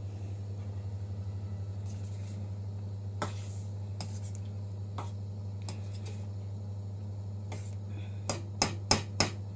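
Metal spoon clinking and scraping against a steel pot while stirring thick ragda, a few scattered knocks and then a quick run of four louder clinks near the end, over a steady low hum.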